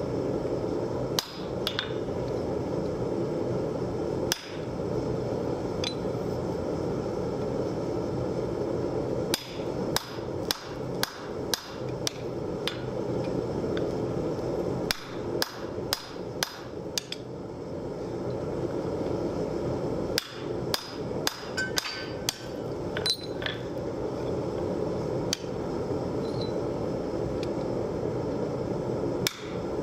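Hammer blows on a hand-held top tool set on a glowing steel bar on the anvil. They come in irregular bursts of quick metallic strikes with pauses between. A steady low rumble runs underneath.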